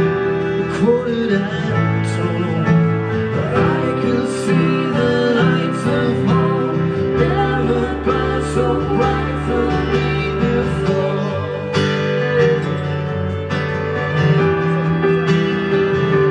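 Live acoustic band playing a slow folk song: strummed acoustic guitar, bowed fiddle and keyboard, with voices singing.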